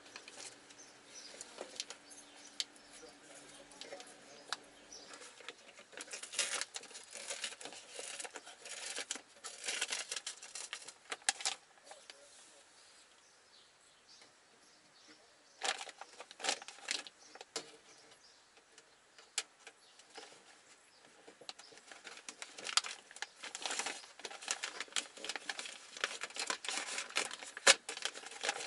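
Hands working inside an open car door with its panel off: irregular rustling, clicking and tapping of plastic and metal parts as the door-handle cable is reached and pulled out. The handling comes in bursts with a quieter pause partway through and a sharper click near the end.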